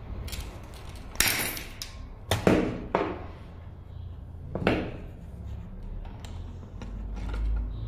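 Combination pliers clacking and scraping against a metal nut and bolt as it is tightened, several sharp metallic knocks, the loudest cluster a couple of seconds in, over a steady low hum.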